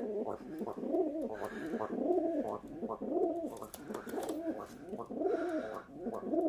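Domestic pigeon cooing in a long, unbroken run of rising-and-falling coos.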